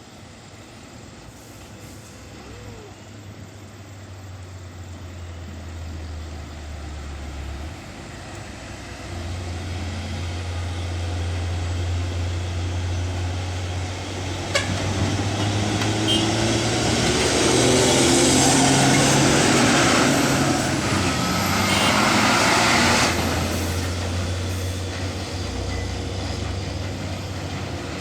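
Heavily loaded dump truck coming down a descent, its diesel engine roaring as it holds back the load. It grows louder to a peak partway through, with a loud hiss that cuts off sharply, then eases off as it passes.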